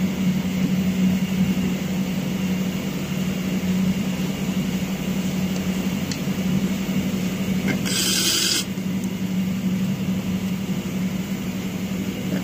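A steady low mechanical hum, with a brief whir of a handheld electric screwdriver running for about half a second some eight seconds in.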